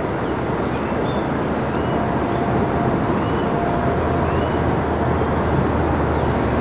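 Steady rushing of wind on the microphone, with a low rumble that grows louder about four seconds in.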